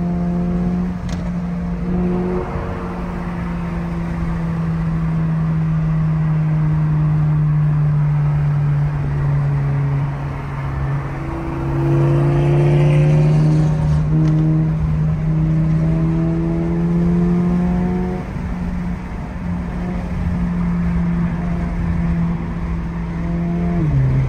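Inside the cabin of a Toyota GR86 at freeway speed: its 2.4-litre flat-four drones steadily over tyre and wind noise, the engine note stepping up and down in pitch a few times as the throttle changes.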